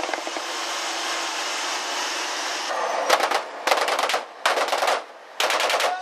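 A steady rush of wind and sea, then from about halfway in, four short bursts of rapid automatic gunfire from a naval patrol boat's machine gun.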